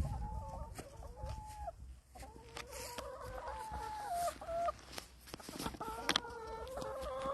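Several hens clucking with long drawn-out calls that overlap, in three spells with short breaks between, and a few light clicks among them.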